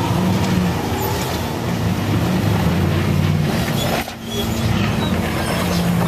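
Off-road race car engine revving up and down under load while the car crawls over boulders. The engine briefly drops off about four seconds in, then picks up again.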